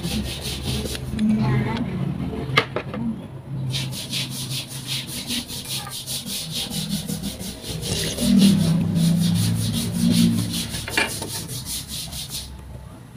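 Pork ribs sizzling in sauce in a frying pan, a steady rapid crackle, with a couple of light clicks from metal tongs against the pan.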